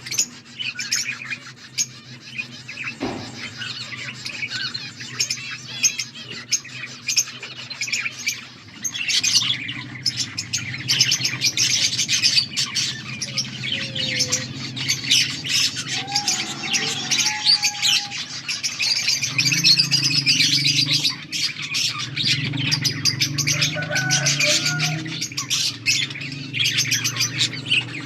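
Budgerigars chattering and chirping in a dense, rapid warble, busier and louder from about a third of the way in, over a low steady hum.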